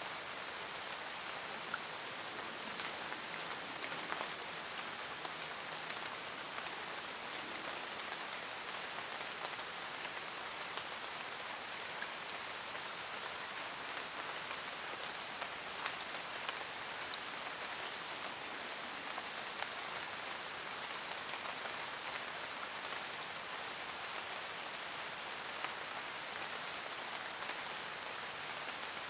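Steady rain falling in a forest, a dense even hiss with many distinct drops ticking on leaves and other surfaces.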